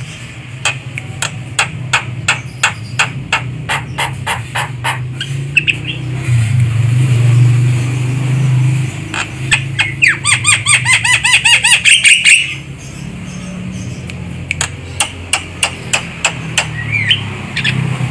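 Javan myna calling: a run of sharp clicks at about three a second, then a quick series of repeated whistled notes in the middle, then more clicks, over a steady low hum.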